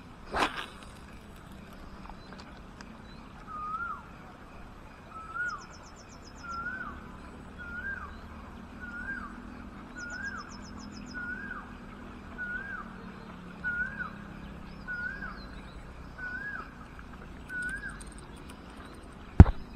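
A bird calls a single short rising-and-falling note about once a second, a dozen times over, in a quiet outdoor background. A sharp knock sounds near the end.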